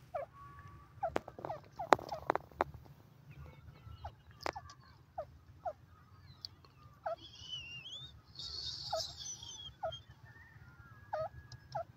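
Grey francolin (teetar) giving a string of short falling call notes, irregularly, about one every half second to a second. There are a few sharp clicks in the first few seconds, and a brief higher warbling run a little past the middle.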